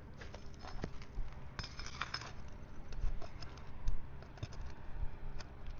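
A metal pry tool working under asphalt roof shingles to pull out a roofing nail that has pulled through the shingle: scattered clicks and small metal clinks, with a longer scrape about a second and a half in and a sharp knock near four seconds.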